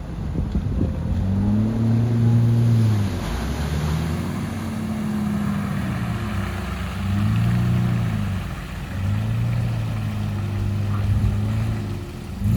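Four-wheel-drive vehicle's engine revving up and easing off several times in a row, with its pitch climbing and falling in repeated surges.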